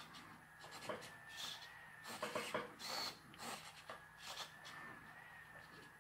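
Small hobby servo motors in a 3D-printed robot skull whirring in short irregular bursts as the jaw and tongue move, over a faint steady whine.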